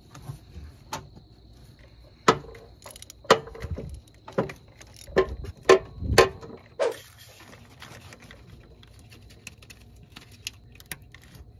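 Metal clinking and knocking as the A/C line's fitting is worked into the compressor port by hand: about seven sharp knocks with a short ring between about two and seven seconds in, then lighter clicks.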